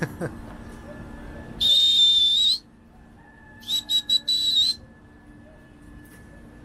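Two loud, shrill whistles, each about a second long. The second starts as a few short blasts and ends on a held note that rises slightly. A pigeon keeper is whistling to call his flock of racing pigeons back to the roof.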